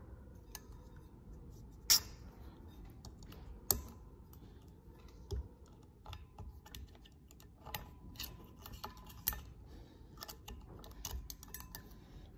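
Small irregular clicks and light scrapes of a metal pick working a white spacer out of a Ski-Doo QRS secondary clutch, with a few sharper ticks, the loudest about two seconds in.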